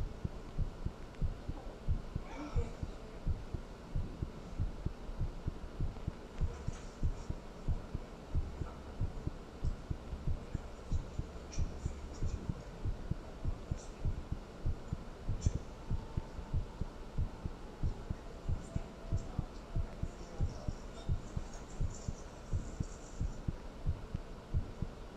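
Recorded human heartbeat: a steady rhythm of low, dull beats repeating evenly.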